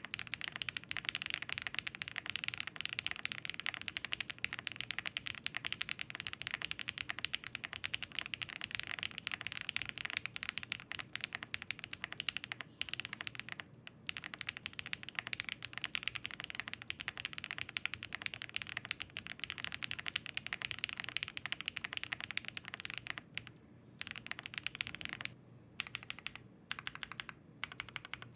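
Zoom65 V3 mechanical keyboard, built in its short-arm spring mount, typed on fast and continuously: a dense stream of keystroke clacks, with a few short pauses and sparser strokes near the end.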